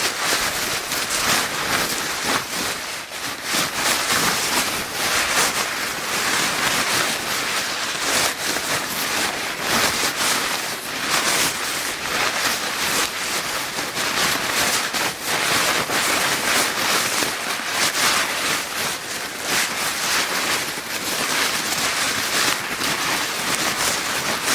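Paper bag being crinkled without a break: a dense, steady crackling rustle made of many small crackles.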